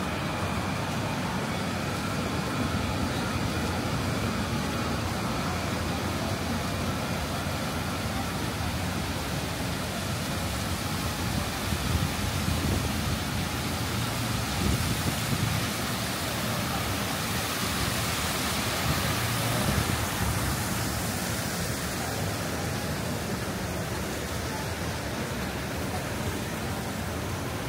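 Steady street ambience of passing traffic on a busy avenue, swelling louder a few times in the middle as vehicles go by.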